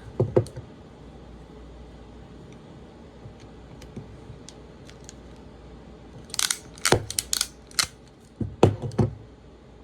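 RJ45 crimping tool clamping a connector onto a network cable: a couple of sharp clicks at the start, then a cluster of clicks and crunches about six to seven and a half seconds in, and a few more clicks near the end.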